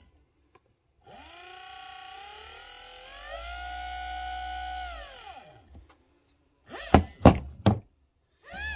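JP Powertorque electric motor spinning up with a rising whine, stepping up in speed partway, holding, then winding down. Near the end come three loud, sharp knocks in quick succession, and then the motor whines up again briefly.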